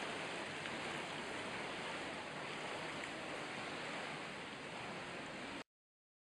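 Pool water splashing and sloshing in an indoor swimming pool as a small child swims breaststroke, a steady wash of noise that cuts off abruptly near the end.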